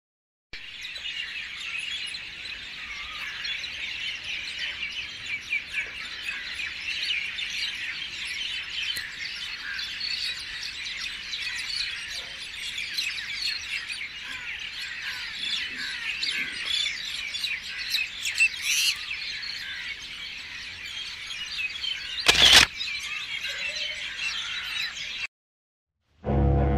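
A dense chorus of many small birds chirping rapidly and continuously, with one sharp, loud click near the end.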